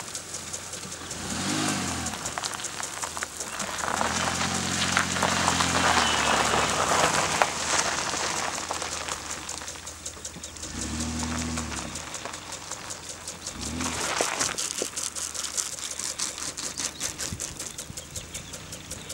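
Minivan engine running as the van creeps across grass, its pitch rising and falling in several short spells of throttle. Throughout, a steady hiss of sprinkler water spraying.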